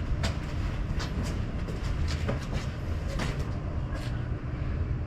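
VW Mk3's swapped-in VR6 engine cranking over on the starter motor in a steady rhythmic churn without firing: the car's crank-no-start fault.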